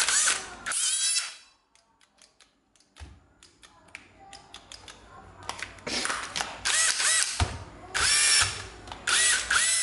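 National EZ6402 cordless drill motor run in several short trigger bursts, each whine rising quickly as it spins up, then stopping. Between the runs come light clicks.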